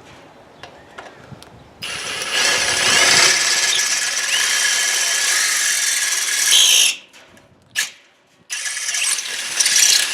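Electric drill with a 1/4 inch bit boring through the face of a gate lock latch, enlarging the starter hole for a padlock shackle, with a high whine as the bit cuts. It starts about two seconds in, runs about five seconds, stops, and after a short click starts again and runs to the end.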